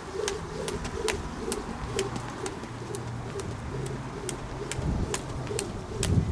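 A jump rope turning steadily, ticking sharply against the dirt on each turn, about two and a half times a second in an even rhythm.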